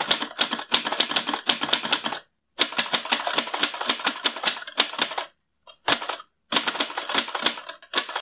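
Typing sound effect: rapid keystroke clicks, about nine a second, in runs broken by short pauses about two and a half and five and a half seconds in.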